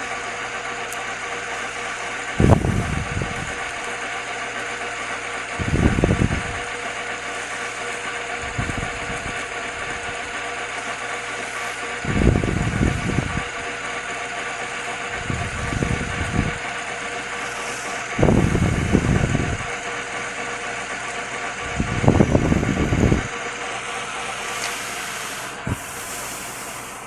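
Metal lathe running with a steady hum while the boring tool cuts into the inside of the spinning workpiece in about seven short, rough passes of a second or so each. The running sound drops off near the end.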